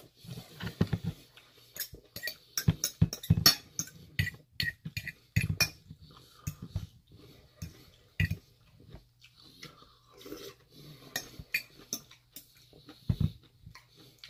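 Close-up eating sounds: a metal fork clinking and scraping against a ceramic bowl in irregular clicks, mixed with chewing and mouth noises.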